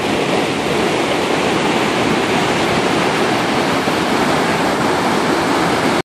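Loud, steady rush of a powerful waterfall, its whitewater pouring and churning without a break.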